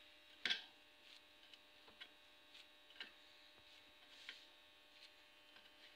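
Near silence: a faint steady hum, broken by a few faint taps, the clearest about half a second in.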